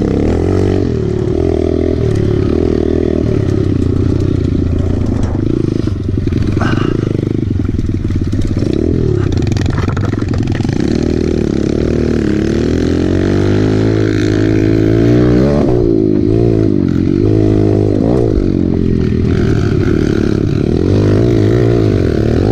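Kawasaki KLX110 pit bike's small single-cylinder four-stroke engine, heard from the rider's own bike, revving up and down again and again as the throttle is worked over dirt jumps.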